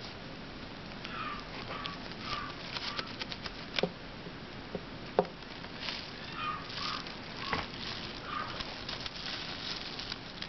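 A Shiba Inu puppy's claws and paws pattering and scratching on the floor of its pen, with scattered sharp clicks, the loudest about four and five seconds in. Short high squeaks come in small clusters early on and again in the second half.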